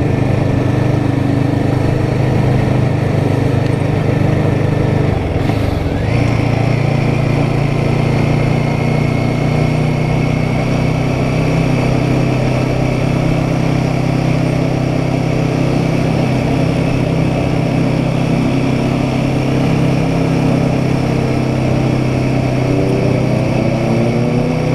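Royal Enfield Guerrilla 450's single-cylinder engine running steadily at low road speed, its note breaking off briefly about five and a half seconds in and then picking up again. Near the end the pitch rises as the bike accelerates.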